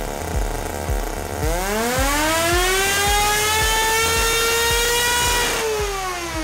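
See-through Wankel rotary engine running at full throttle with a leaned mixture. Its high whine climbs steeply about a second and a half in, holds at a peak near 27,000 rpm, then drops away about five and a half seconds in. A low thump about twice a second runs underneath.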